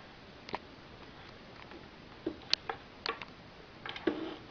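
Scattered clicks and light knocks from an amplifier board on its panel being handled and fitted back into a subwoofer cabinet, over a faint steady hiss. The knocks come mostly in the second half, the loudest a little after two, three and four seconds in.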